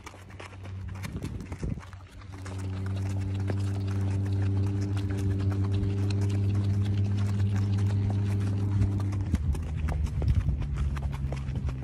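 Horses' hoofbeats clip-clopping on a dirt road, under a steady low hum that starts about two seconds in and drops to a different pitch near the end.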